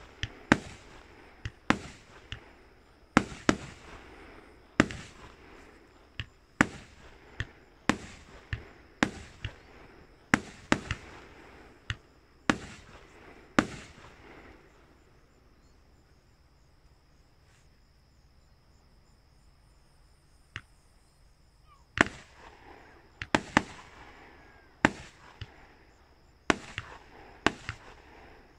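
Fireworks display: aerial shells bursting in a fast run of sharp bangs, each trailing off briefly. After about fourteen seconds there is a lull of several seconds with only a faint pop, then another quick run of bangs starts near the end.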